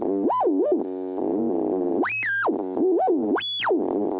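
Radio frequency-scanning sound effect: a buzzy electronic tone sweeping up and down in pitch several times, jumping in steps, with short patches of hiss between sweeps. It settles into a steady buzz near the end.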